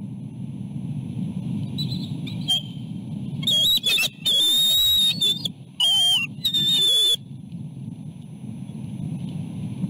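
Adult bald eagles calling at the nest: a run of loud, high-pitched whistled chatter calls with short pitch glides, from about three and a half to seven seconds in, with a few faint notes before it. This is the pair's greeting as the male lands at the nest with food. Steady wind rumble on the microphone runs underneath.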